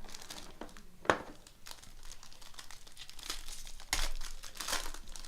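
Plastic wrapping crinkling and tearing as a sealed trading-card box and pack are opened by hand, with a sharp click about a second in and louder crinkling near the end.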